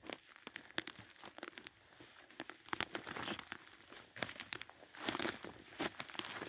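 Footsteps crunching through dry leaf litter and fallen twigs, a busy run of crackles and rustles with stronger crunches now and then.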